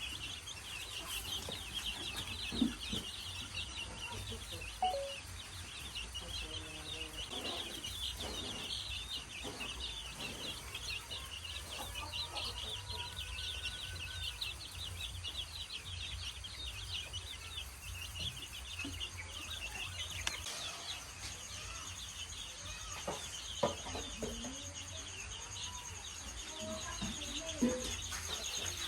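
Chicks peeping continuously in a dense chorus, with a hen's lower clucks now and then. A few sharp knocks stand out, two near the start and two near the end.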